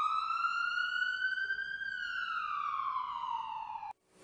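A single siren wail that rises in pitch for about two seconds, then falls slowly and cuts off abruptly near the end.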